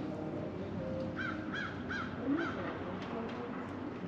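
A bird calling four times in quick succession, starting about a second in, each call a short arched note.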